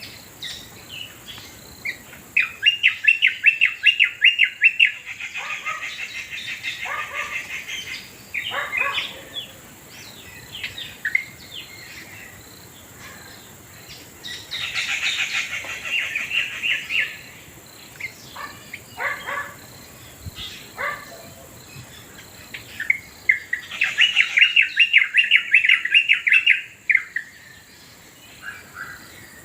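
Birdsong: three long bouts of fast, rapidly repeated chirping notes, with shorter sweeping calls between the bouts.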